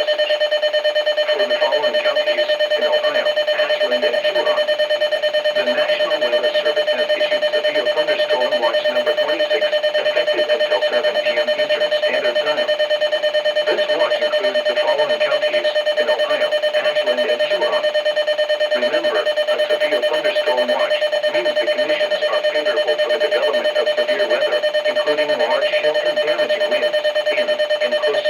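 Weather alert radio's alarm: a loud, rapidly pulsing beep on one steady pitch, repeating without a break.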